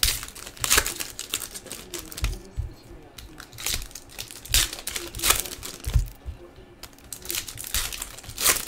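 Foil wrappers of baseball card packs crinkling and tearing as they are opened by hand, in irregular bursts.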